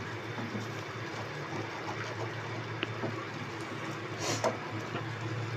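Wooden spatula stirring a thick onion-cashew paste simmering in a kadhai, with light scraping and bubbling over a steady low hum; a louder scrape comes about four seconds in.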